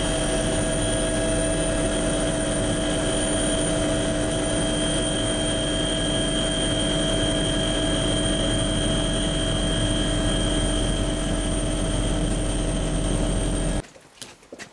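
Helicopter in flight, heard from on board: a steady engine and rotor noise with a high turbine whine. It cuts off suddenly near the end.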